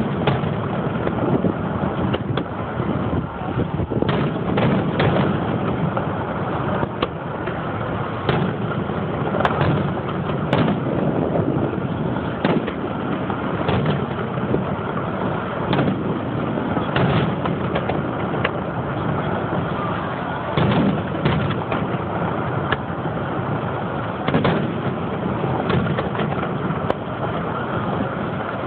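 Aerial firework shells bursting in a display: many irregular sharp bangs, some close together, over a continuous rumbling noise.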